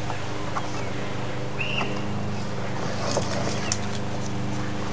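Faint rustles and small clicks of a webbing strap's loose end being knotted by hand, over a steady low hum, with one short high chirp about one and a half seconds in.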